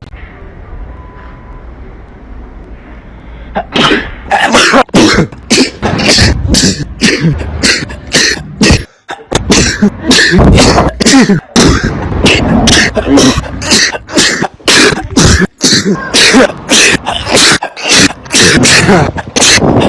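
A few seconds of quieter background, then from about four seconds in a rapid string of loud, explosive sneezes and cough-like blasts, roughly two a second.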